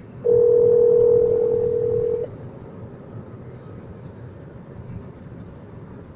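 Telephone ringback tone over a phone's speaker. A steady tone sounds for about two seconds, pauses for about four, and starts again at the very end, the on-off ringing pattern of a call that has not yet been answered. Low road noise from the moving car runs underneath.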